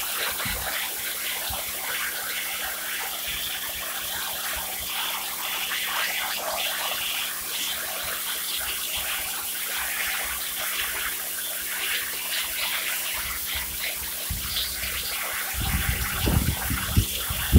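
Pressure-washer jet spraying woven olive-press mats (capachos), a steady hiss of water against the weave as it strips off dirt loosened by a potassium hydroxide soak. A louder, uneven low rumble comes in near the end.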